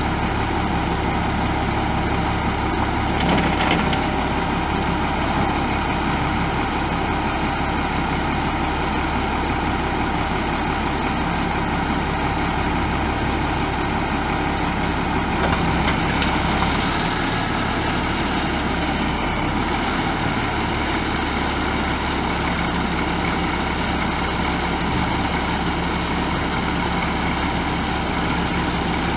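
A 1998 International 4900 bucket truck's DT466 7.6-litre inline-six turbo diesel idling steadily. There are two brief louder noises, about three seconds in and about halfway through.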